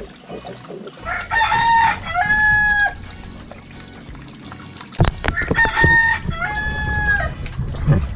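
A rooster crowing twice, each crow ending on a long held note, about four seconds apart. A sharp knock comes just before the second crow.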